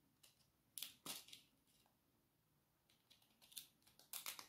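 Faint scraping and clicking of a short, narrow knife blade against a raw oyster's shell as it is worked into the gap to pry the shell open. A few short scratches come about a second in and again near the end.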